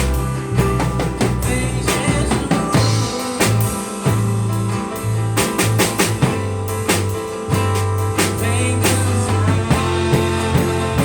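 Live band playing the song's instrumental passage: drum kit keeping a steady beat under a bass line of held low notes that change about once a second, with guitar and sustained higher chords.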